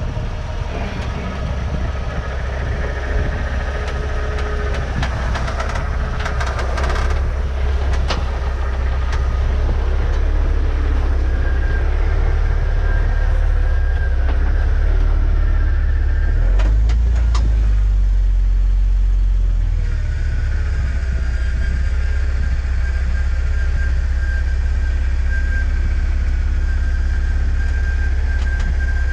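Off-road 4x4 crawling over slickrock: its engine runs with a steady low rumble and a thin whine, broken by a few sharp clicks about six to eight seconds in and again around sixteen seconds.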